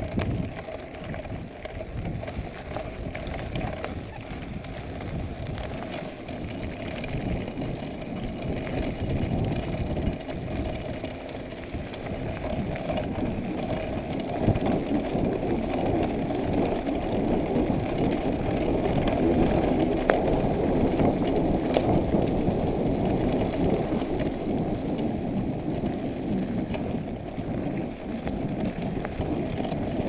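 Corratec mountain bike rolling along a gravel road: a steady rumble of tyres on loose stones with small rattles and clicks from the bike. It grows louder from about halfway through as the ride picks up.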